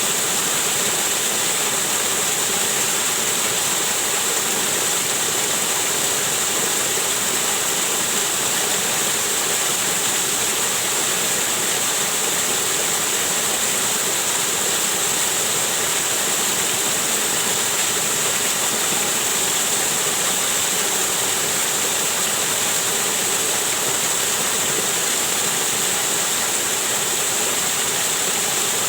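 Waterfall: water pouring in a steady, unbroken rush with a strong hiss.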